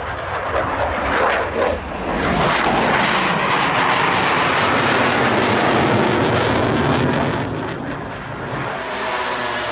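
F/A-18 Hornet fighter jet flying overhead: loud jet engine roar that swells about two seconds in, holds for several seconds, then fades.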